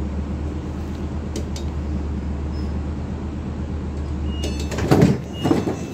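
Steady low hum inside a stopped electric passenger train while the door-open button is held; about four and a half seconds in, clicks and a short beep, then the sliding passenger doors open with two loud gusts of noise.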